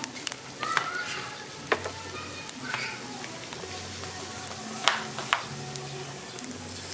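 Stuffed snails sizzling on a grill, the juices bubbling and spitting in their shells, with scattered sharp pops and crackles, the loudest about five seconds in.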